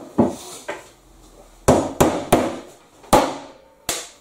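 Claw hammer knocking clout nails into a timber roof deck: about seven sharp, unevenly spaced knocks, the strongest in the second half.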